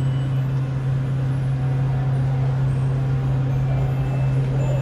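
A steady low hum of a running motor, unchanging in pitch and level.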